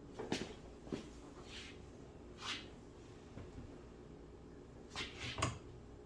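Plastic retaining clips of a BMW X6 door trim panel snapping into the door: two sharp clicks in the first second and two more near the end, with short brushing sounds of the panel sliding against the door in between.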